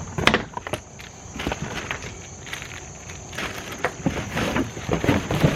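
Irregular plastic clicks and knocks from a small electric pressure washer's parts being handled and tried, over a steady high insect chirr.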